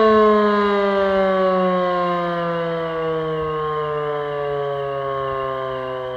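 E57 electromechanical civil-defence siren winding down at the end of a fire-brigade alarm, its pitch falling slowly and its sound fading as the rotor slows.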